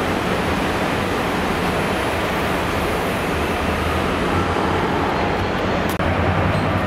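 Pullman coaches rolling slowly past, a steady rumble and hiss of wheels on rail, with a brief dropout about six seconds in.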